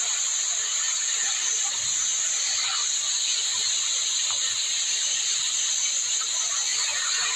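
Small waterfall pouring down a rock face, a steady hiss and splash of falling water.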